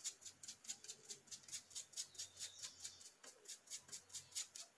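Paintbrush scrubbing yellow paint onto a small EVA-foam pistil in quick, even strokes, about five soft scratches a second.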